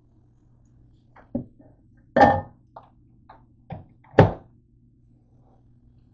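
Microwave oven door being handled, opened and shut: a series of knocks and thunks, the two loudest about two and four seconds in.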